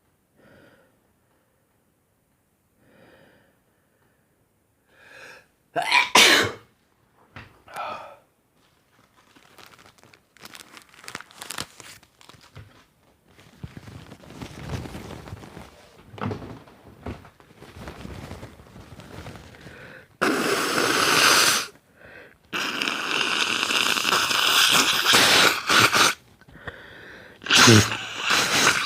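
A man sneezing, with faint catching breaths leading up to a sharp, loud sneeze about six seconds in, then sniffling and blowing his nose in long, loud blows in the second half.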